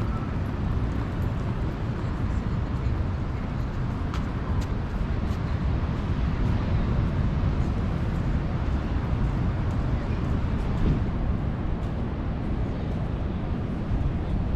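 Steady rushing of ocean surf with a heavy low rumble, with a few faint ticks over it.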